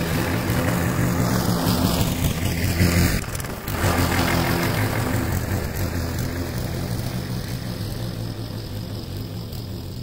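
Briggs & Stratton single-cylinder engine of a walk-behind lawn mower running steadily under load while cutting grass. It is loudest about two to three seconds in as the mower passes close, has a short break a little past three seconds, then grows gradually fainter as the mower moves away.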